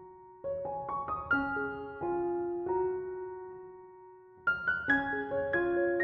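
Gentle background piano music: a short run of notes and a long held chord that slowly dies away, then more notes again about four and a half seconds in.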